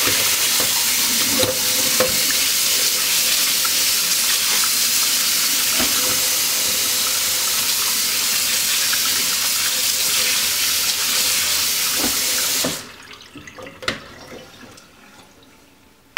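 Kitchen tap running into a stainless steel sink, pouring over potatoes in a metal mesh colander as they are rinsed with hot water. The water shuts off suddenly about three-quarters of the way through, followed by a few light knocks as the colander is handled.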